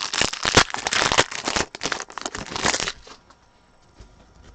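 Foil wrapper of a football trading-card pack crinkling as it is torn open, a dense crackle for about three seconds that then dies away.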